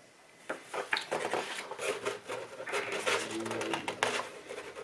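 Loose paper leaflets being leafed through and handled: crisp rustles and small flaps and taps, starting about half a second in.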